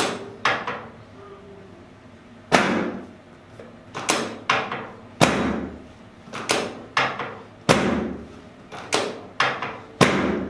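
About a dozen sharp knocks and thuds, spaced unevenly, during chiropractic adjusting on a treatment table. Each is a sudden hit with a short ringing tail.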